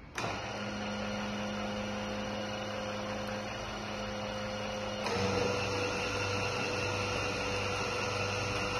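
Electric gate-opener motors running under the control board: one motor starts abruptly with a steady hum, and about five seconds in a second motor joins and the hum grows louder.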